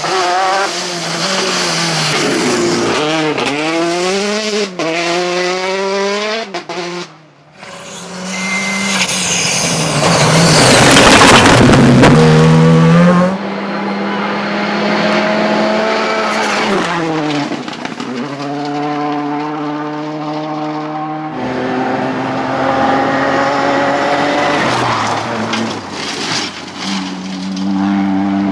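Rally cars at full throttle on a gravel stage, engine pitch climbing and dropping through the gear changes as each car passes. Several passes are cut together, and the loudest, about ten to thirteen seconds in, has a rush of tyre and gravel noise.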